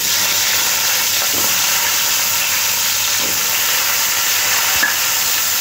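Potato pieces sizzling steadily in hot oil in a kadai, just added to oil left over from frying fish, with a few faint knocks as more pieces go in.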